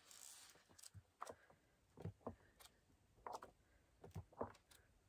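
Faint paper rustles and soft brushes as the pages of a large art book are turned by hand, about ten short sounds spread through an otherwise near-silent room.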